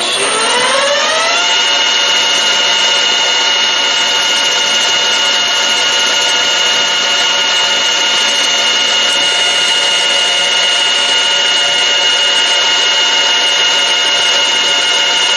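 Metal-turning lathe starting up, its whine rising in pitch over the first second or so, then running steady at speed with a high-pitched whine.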